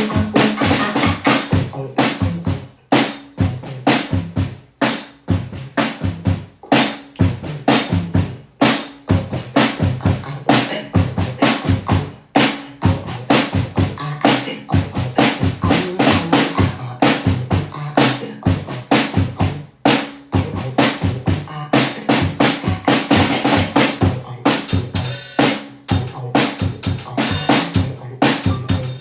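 A fast, steady percussive beat of drum-like hits, several a second, with a low-pitched thud under them.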